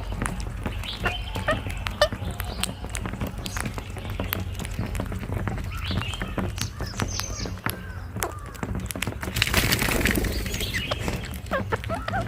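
Rose-ringed parakeets calling in a loose flock, many short chirps and squawks overlapping. A steady low hum runs underneath, and a brief noisy burst comes about ten seconds in.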